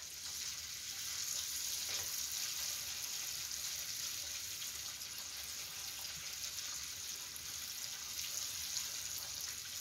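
Breadcrumbed kabocha cheese croquettes deep-frying in a pan of hot oil, with a steady, even sizzle.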